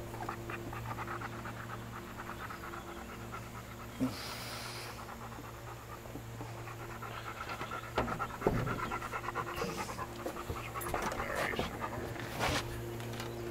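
Yellow Labrador retriever panting quickly and evenly close by, over a steady low hum. A few sharp knocks come through about a third of the way in, twice in quick succession past the middle, and again near the end.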